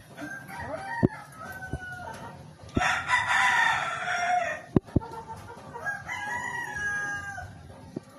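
Roosters crowing: three crows in turn, each lasting about two seconds, the middle one the loudest. A few sharp clicks fall between them.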